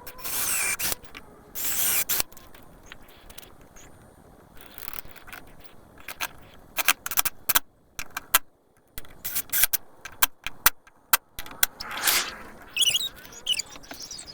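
Hard objects being handled: two longer scrapes near the start, then a run of sharp clicks, knocks and rattles, and another longer scrape about twelve seconds in.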